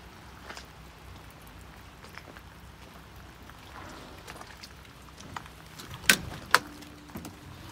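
Light rain pattering with scattered drop ticks over a low steady hum. About six seconds in, two sharp clicks half a second apart as the cab door latch of a Polaris Ranger XP 1000 is pulled open.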